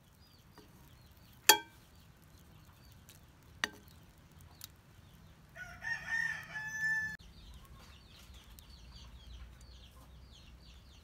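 Pet chickens in the background, with a rooster crowing once about six seconds in for a second and a half. Two short sharp sounds come earlier, and faint repeated chirps follow the crow.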